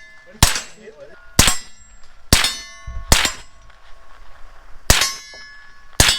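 Six gunshots fired about a second apart, with a longer pause between the fourth and fifth. Each shot is followed by a short metallic ring.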